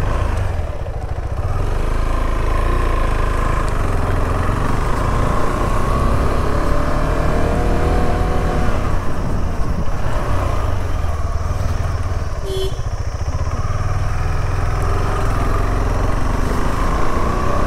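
KTM 390 Adventure's single-cylinder engine pulling under load up a steep hill road. Its pitch rises twice as it accelerates, over a heavy steady low rumble.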